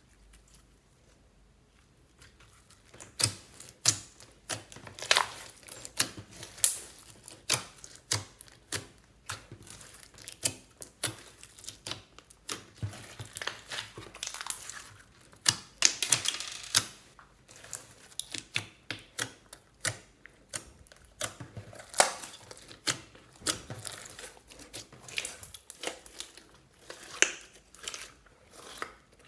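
Hands kneading and squeezing a clear glitter slime mixed with small beads, making quick irregular sticky clicks and pops, several a second. It starts about two seconds in.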